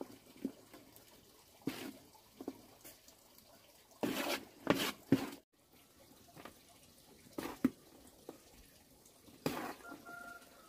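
Water splashing in short, irregular bursts, as in hand work at a basin or sink.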